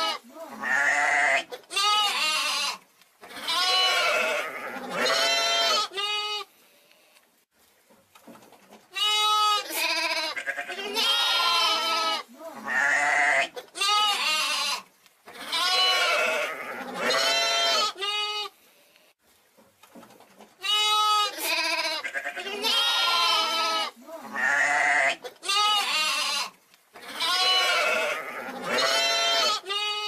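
A young sheep, a hogget, bleating over and over. The calls last about a second each, their pitch quavering, and come in runs of several with a few seconds' pause between runs.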